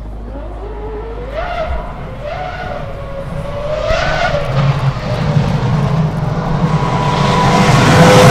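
Race car engine revving, its pitch climbing and dropping three or four times, then growing steadily louder toward the end.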